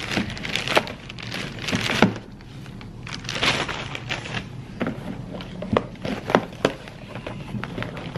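Plastic mailer bag rustling and crinkling as small cardboard boxes are pulled out of it, then the boxes knocking down onto a wooden table several times in quick succession.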